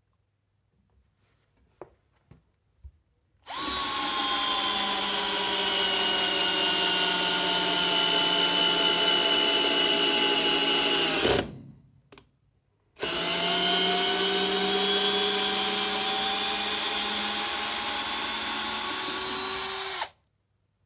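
Parkside PBSA 12 D4 12 V cordless drill's brushed RS550 motor and gearbox driving a long wood screw into a timber beam, its whine dropping slowly in pitch as the load builds, then stopping. After a short pause it runs again for about seven seconds, backing the screw out, the pitch rising slightly as the load eases. A few light clicks come before the first run.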